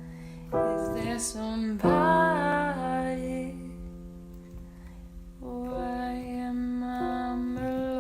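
Piano music of slow, held chords left to ring, with a woman singing a wordless wavering note about two seconds in.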